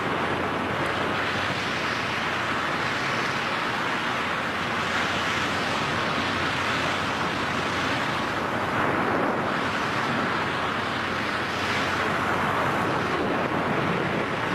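Steady rush of wind over a freefalling skydiver's microphone, swelling and easing slightly as the air hits it.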